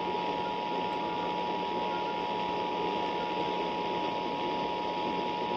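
Emergency Alert System two-tone attention signal, 853 Hz and 960 Hz sounded together, held steadily over broadcast hiss and a faint low hum.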